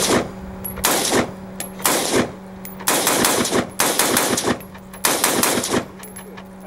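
An AR-style rifle fired in quick strings of shots: about six bursts of rapid fire, the longer ones near the middle and end lasting close to a second each.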